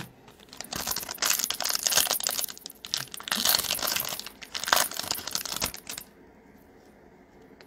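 Foil wrapper of a Bowman Chrome trading-card pack crinkling and tearing as it is ripped open by hand, a dense run of crackly rustles that stops about six seconds in.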